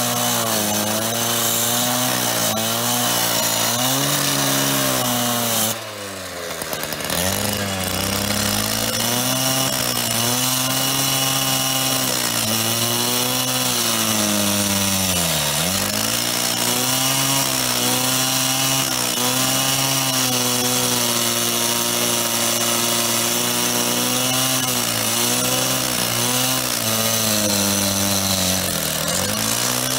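Power saw cutting into a metal payphone, its motor pitch sagging and recovering as the blade bites, over a steady hiss of cutting. The motor eases off briefly about six seconds in.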